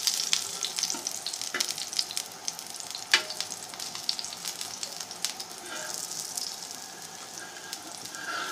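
Gram-flour batter sizzling and crackling in a little hot oil on a tawa griddle, with a few sharp ticks, the loudest about three seconds in.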